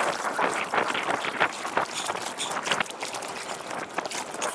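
Water splashing against an inflatable boat and wind on the microphone, sped up by the time lapse into a rapid, irregular patter of small splashes.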